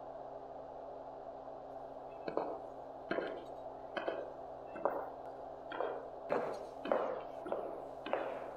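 Footsteps of heeled shoes on a hard floor: sharp, evenly spaced strikes starting about two seconds in, about one a second at first and coming closer together near the end. A steady low hum runs beneath them.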